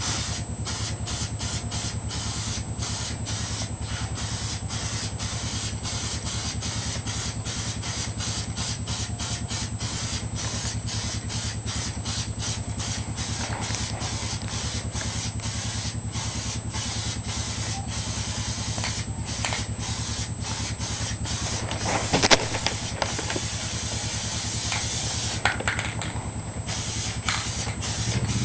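Aerosol spray can of tractor and implement enamel hissing in many short, rapid bursts as paint is sprayed on, over a steady low hum. A brief sharp knock about three-quarters of the way through is the loudest moment.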